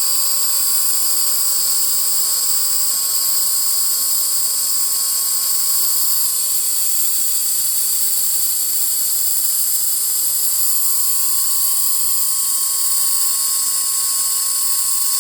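Handheld fiber laser welding machine running through a continuous weld on stainless steel: a steady, even hiss with high whining tones over it and a thin steady tone in the middle.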